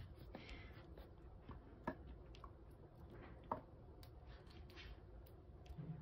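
Near-quiet room with a few faint light clicks and taps from kittens pawing at a small object on a tile floor, the clearest about two and three and a half seconds in.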